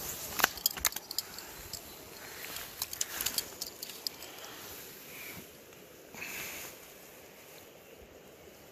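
Handling noise from a phone and a freshly landed trout on a muddy bank: a cluster of sharp clicks and rustles in the first second and again about three seconds in, then quieter, over a steady outdoor hiss.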